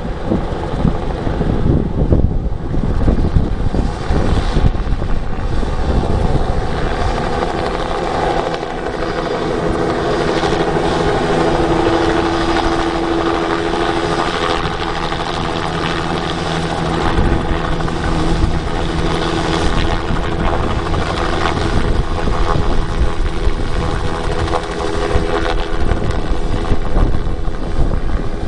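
A light helicopter's rotor and engine running loud and steady with a held whine as it flies in and hovers low over the ground.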